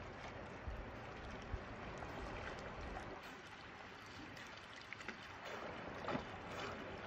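Faint mountain river water lapping and trickling at a rocky bank, with a few small splashes.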